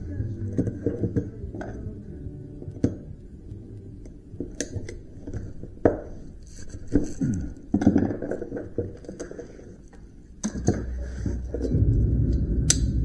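Irregular metallic clinks, knocks and scrapes of hand tools working copper windings and plastic insulation out of cut electric motor stators. A low steady hum comes in about ten seconds in.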